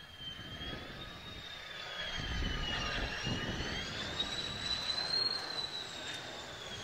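Mitsubishi F-2 fighter's single GE F110 turbofan on a low landing approach: a high engine whine that sags in pitch around three seconds in and climbs to its highest around five seconds, over a jet rumble that swells as the jet comes close.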